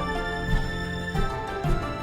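Background music: held chords over a steady low beat.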